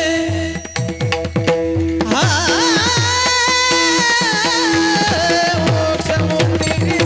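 Varkari kirtan music: a pakhawaj (mridang) playing a steady rhythm, its bass strokes sliding down in pitch, over a steady harmonium drone and sharp cymbal clicks. About two seconds in a singer rises into a long high held note with vibrato, letting go near five and a half seconds.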